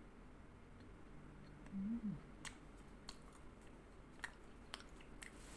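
Closed-mouth chewing of a chocolate-coated nut, with a few soft sharp mouth clicks. A short hummed "mm" rises and falls about two seconds in.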